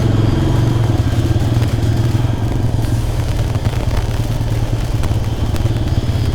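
Motorcycle engine running steadily at low revs while riding downhill off-road, with irregular knocks and rattles as the bike goes over rough, rocky ground.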